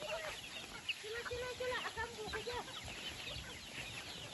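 A flock of chickens clucking, with many short calls overlapping and a run of repeated clucks a little after a second in.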